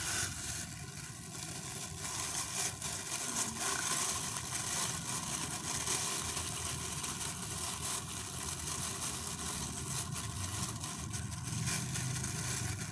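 A thin clear plastic bag crinkling and rustling as it is pulled down over a potted stem cutting and gathered around the pot by hand. A steady low engine hum runs underneath.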